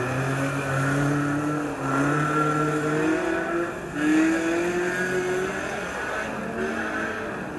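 Fol'car race car engines accelerating hard, their pitch climbing and dropping back at each gear change. Several engines overlap, the loudest climb coming about four seconds in.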